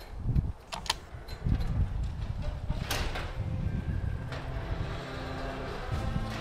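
Sectional garage door rolling up on its opener, a steady low rumble with a couple of sharp clacks in the first three seconds. Music comes in faintly near the end.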